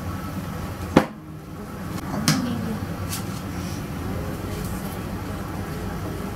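Two sharp knocks, about a second and two seconds in, over a steady low room hum, from a batter-coated wire whisk handled over a ceramic mixing bowl of brownie batter.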